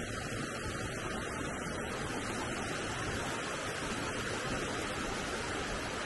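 Mountain stream flowing over rocks, a steady rush of water.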